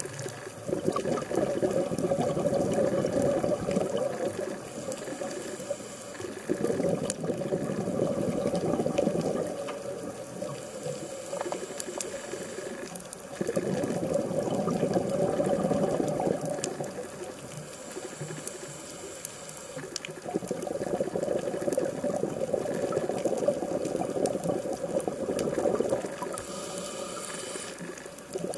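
Scuba diver breathing through a regulator underwater: exhaled bubbles rush and gurgle for a few seconds at a time, four times, with the fainter hiss of an in-breath in the gaps between.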